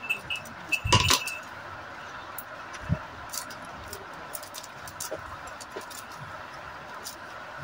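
Steel pliers and a small lever and spring clinking against a metal tappet cover as the lever is worked into place, with light clicks at the start, one louder ringing clink about a second in, a soft knock near three seconds, and then scattered faint ticks.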